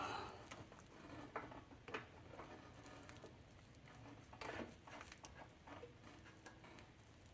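Faint, scattered clicks and light knocks of hand tools being handled and set against metal, with a brief louder clatter right at the start.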